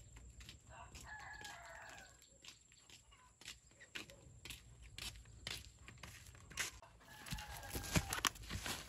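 A rooster crowing twice, once about a second in and again near the end, each crow lasting about a second. Short scuffing footsteps of flip-flops on dirt and weeds tick along underneath and grow louder near the end.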